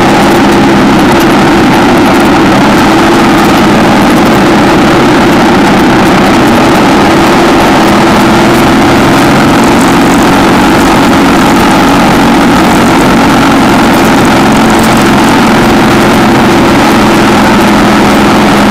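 1960 AJS 650 motorcycle's parallel-twin engine running at a steady, unchanging pitch.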